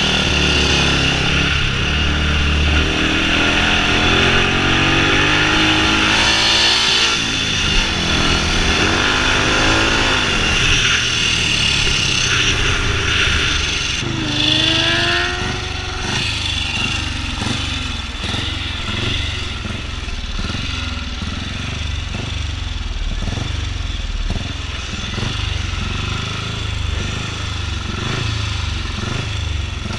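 Single-cylinder engine of a historic ESO 500 racing sidecar outfit under hard acceleration, its pitch rising and falling through the gear changes. About halfway through it eases off, and the rest is quieter, uneven low-rev running as the outfit slows.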